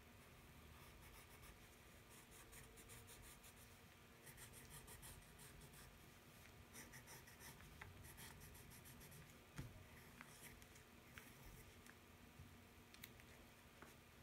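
Faint scratching of a pencil on paper in short runs of strokes as a drawing is outlined, over a faint steady hum.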